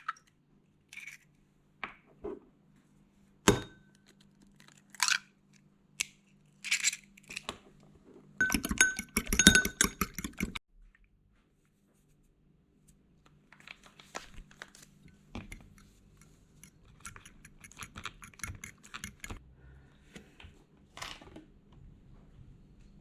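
Scattered small metallic clinks and rattles of objects being handled, thickening into a dense clatter for about two seconds near the middle, over a faint low hum.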